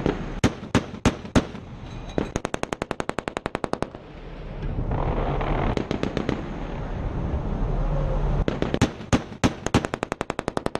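Shipboard machine-gun fire: a few single shots about three a second, then a rapid burst of roughly ten rounds a second. A rushing lull follows, then more single shots and another rapid burst near the end.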